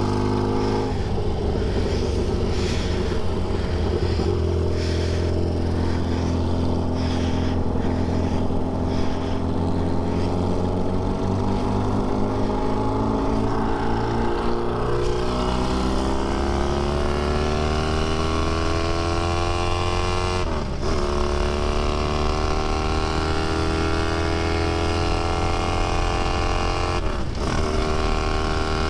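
Classic racing sidecar outfit's engine pulling hard at speed, its note climbing steadily, with two brief breaks in the note in the second half.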